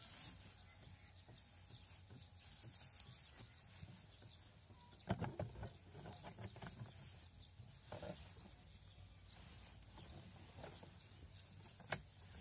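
Hay rustling as it is stuffed into a homemade chipboard hay press, with knocks from the press's wooden box and lever: a loud cluster about five seconds in, a smaller one near eight seconds and a sharp single knock near the end.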